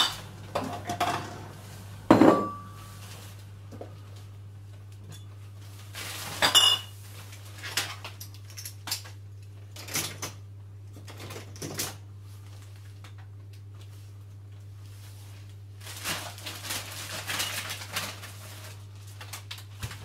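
Glass wine bottles clinking and knocking together in a plastic carrier bag as they are gathered up, in scattered bursts, the loudest about two seconds in with a short ring. A steady low hum runs underneath.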